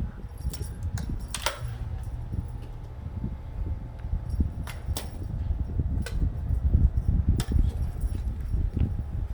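Light, scattered clicks and taps over a low rumble of handling noise, as a calico kitten plays with a fishing-rod cat toy.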